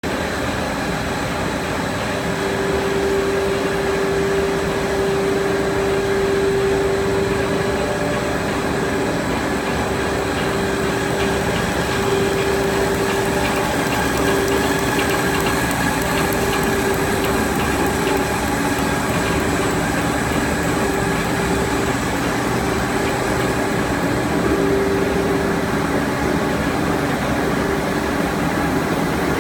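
HDPE raffia film extrusion line running: a steady machine drone with a held humming tone that swells and fades slightly, over constant factory noise.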